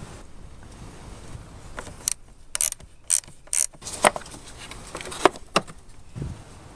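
A 10 mm ratcheting wrench clicks in about four quick spurts, roughly two a second, as it loosens a car battery terminal clamp nut. Then come a few sharper metal clicks.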